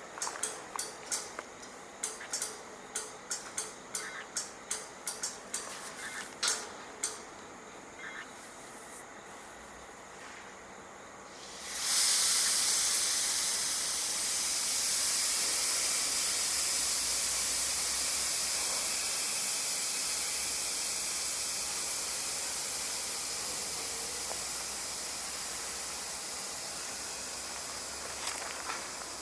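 Freight train wheels clicking over rail joints, the clicks spaced and fading as the train moves away. About twelve seconds in, a loud, steady high hiss starts suddenly and slowly fades.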